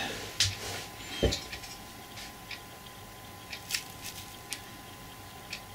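Faint scattered clicks and taps of metal tweezers against the parts of a model steam locomotive's chassis, one a little louder with a dull knock about a second in, over a faint steady hum.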